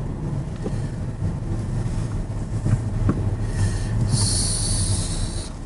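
Steady low rumble of a car's engine and tyres heard from inside the cabin while driving slowly, with a few light knocks and a short burst of hiss about four seconds in.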